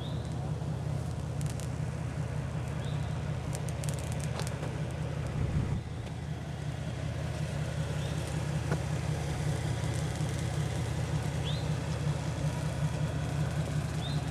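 Chevrolet Blazer ZR2's V6 engine running steadily, a low drone. A short high chirp comes every few seconds, and a few light rattles about four seconds in.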